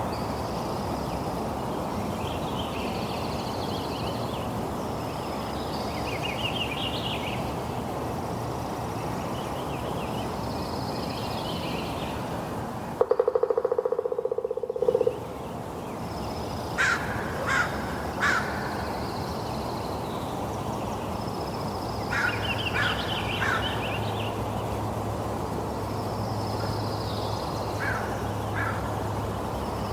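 Steady rain noise with birds calling over it. About halfway through, a loud buzzing tone lasts about two seconds, followed by three short, sharp, loud calls.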